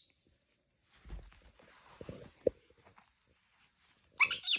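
Soft thumps and rustling from handling or movement, with one sharper knock, then near the end a baby monkey breaks into a short, shrill scream.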